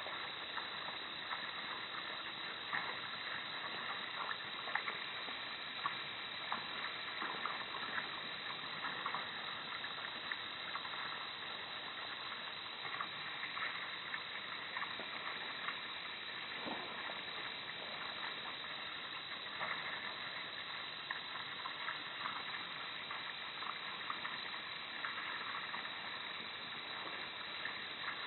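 Steady hiss of a security camera's low-quality microphone, with scattered faint ticks.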